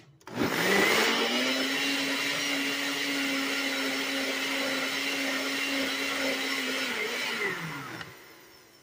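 Countertop blender motor spinning up and running steadily as it purees a jar of salsa, then winding down with a falling pitch near the end.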